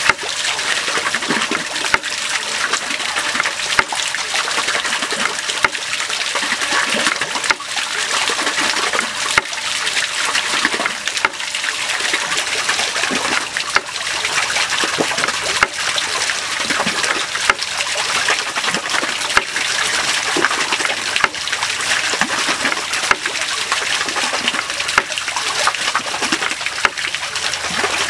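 Water boiling in a frying pan, stirred and scooped with a steel ladle: a steady bubbling hiss with many short sharp clicks scattered through it.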